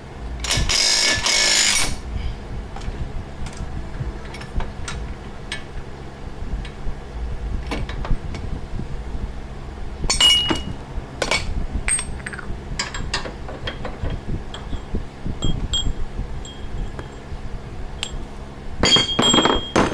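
Metal tools and suspension parts clinking and clanking during a ball-joint job, some strikes ringing briefly, over the steady hum of a shop fan. A loud rushing noise lasts about a second and a half, starting about half a second in.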